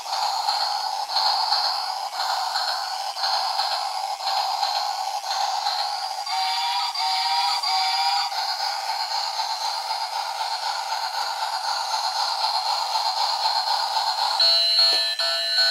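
Battery-operated toy train running on plastic track, playing its electronic tune through a small, tinny speaker over the whirr and rattle of its motor. Short stepped notes sound about six seconds in, and a new run of notes starts near the end.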